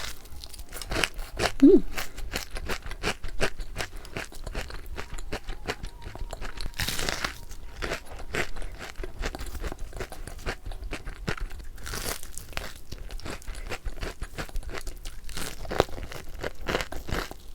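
Close-miked crunching and chewing of crispy fried chicken coating: a dense run of crackles as it is bitten and chewed, with louder crunchy bites about 7 and 12 seconds in.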